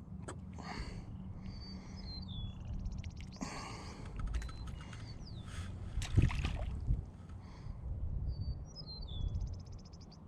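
A songbird singing the same short phrase twice, a few high chirps ending in a rapid buzzy trill, over a steady low rumble and occasional clicks and knocks of handling.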